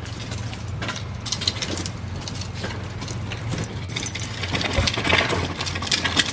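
Light metallic jingling and clicking from the tags on a Boston terrier's collar as it goes down concrete steps, growing busier about halfway through, over a steady low hum.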